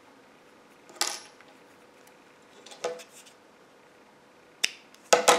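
Small metal tools clinking as they are handled and set down: a light clink about a second in, another about two seconds later, and a louder quick cluster of clinks near the end.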